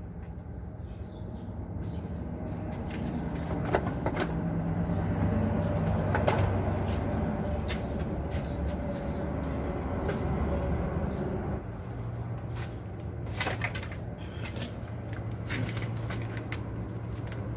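Low engine hum of a nearby heavy vehicle, growing louder through the first half and changing pitch a little before two-thirds of the way in, with scattered clicks and knocks of a bowl, bottles and bags being handled.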